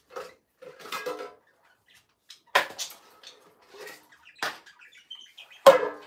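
A scuffle on a kitchen floor while a man grapples with a young goat: several sharp knocks and clatters, the loudest near the end.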